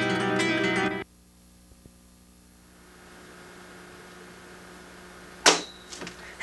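Strummed acoustic guitar music in flamenco style that cuts off abruptly about a second in, leaving a faint low steady hum. Near the end, a sharp loud click, followed by a smaller one.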